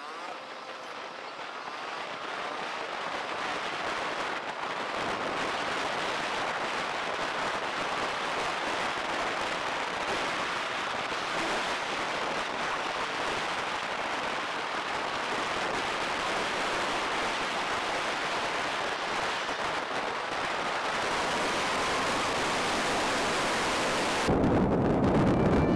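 Steady rushing noise with no distinct events, slowly growing louder; music comes in near the end.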